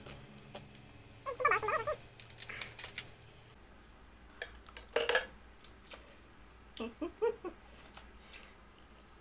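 Close-up mouth sounds of spicy instant noodles being eaten with chopsticks: slurping and chewing, with the loudest slurp about five seconds in. About a second and a half in comes a short, wavering, high-pitched cry.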